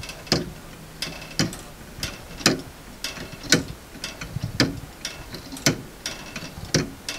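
3D-printed plastic pendulum clock ticking on its anchor escapement, with a sharp tick about once a second and fainter ticks in between.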